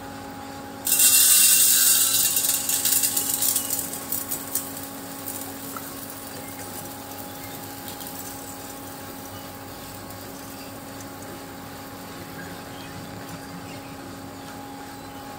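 Electric coffee grinder running with a steady motor hum. About a second in, a loud, gritty grinding of coffee beans starts and dies away over the next few seconds as the beans go through.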